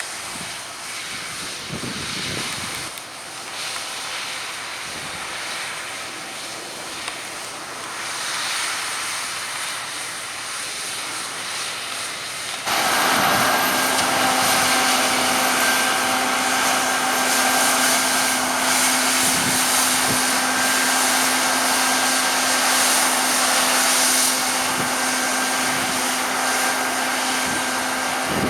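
Harvest machinery running steadily. A fainter, noisier engine sound with some wind comes first; about halfway through it switches abruptly to a much louder, closer machine with a steady whine over the engine.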